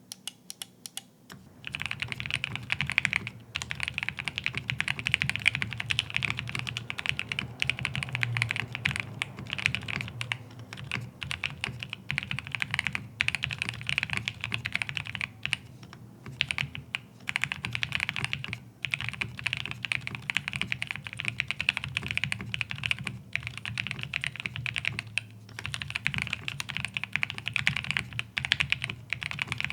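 Continuous fast typing on a mechanical keyboard fitted with GMK MTNU-profile double-shot PBT keycaps, a dense run of key clicks with a few brief pauses.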